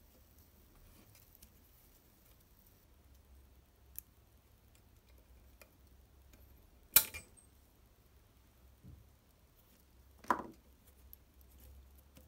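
Metal engine parts handled on a workbench: a sharp click about four seconds in, a louder metallic clink with a short ring about seven seconds in, and a duller knock about ten seconds in.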